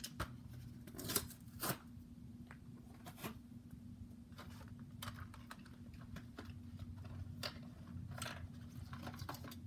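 Toy blister packaging being handled and opened: scattered clicks and crackles of plastic and cardboard, over a faint steady low hum.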